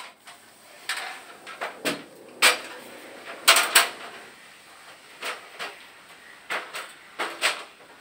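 Aluminium stepladder knocking and clanking as it is carried and stood up: a series of sharp knocks, the loudest about two and a half and three and a half seconds in.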